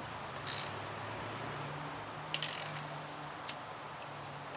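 A socket ratchet with a 15 mm socket clicking in two short bursts as a nut is tightened down, with a single click later on. A steady low hum runs underneath.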